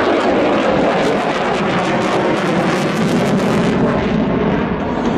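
Fighter jet flying past, its engines giving a loud steady roar whose pitch slowly drops as it goes by.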